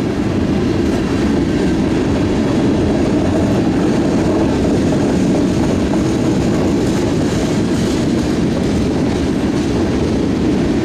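Tank cars of a freight train rolling past at low speed: a steady rumble of steel wheels on the rails.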